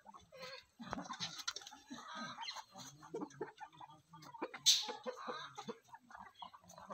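Chickens clucking and calling, many short, irregular calls from several birds, with one brief sharp high sound about halfway through.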